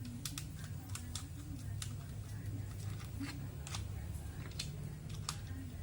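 Small plastic toy parts clicking and tapping as they are handled, about ten irregular sharp clicks over a steady low hum.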